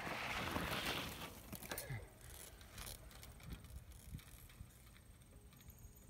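Bicycle tyres crunching over loose gravel as the bike passes and throws up grit, loudest in the first second and then fading to scattered small clicks.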